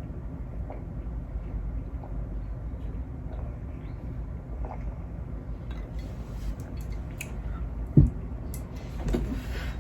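Quiet eating and food-handling sounds: faint clicks and small wet noises over a steady low hum, with one sharp thump about eight seconds in and some rustling near the end.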